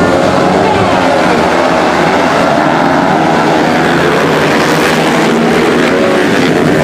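Several motorcycle engines running and revving together, their pitches rising and falling and overlapping.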